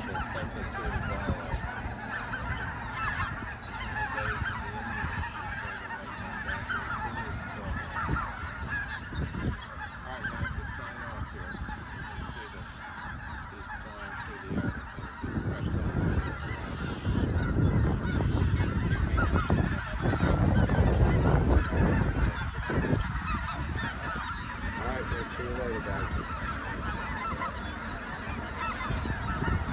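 A huge flock of snow geese calling all at once: a constant dense din of overlapping honks and yelps. A low rumble swells up through the middle and fades again.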